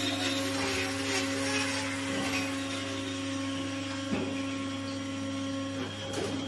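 A cow's hoof being trimmed with a power tool in a hoof-trimming chute, with a couple of sharp knocks, over a steady mechanical hum.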